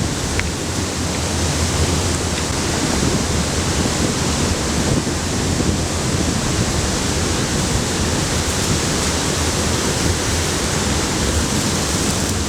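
Steady, loud rush of air and running noise from a VOD-40 axial mine ventilation fan, with a constant low drone underneath.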